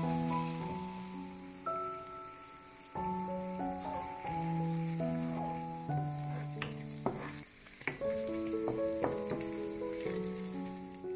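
Diced bacon sizzling in hot fat in a frying pan, with a wooden spoon stirring and scraping the pieces and a few sharp clicks of the spoon on the pan. Soft piano-like background music plays alongside.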